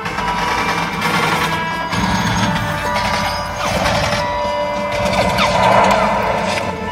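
Action-film soundtrack playing through the car's stereo speakers: music with crashing effects.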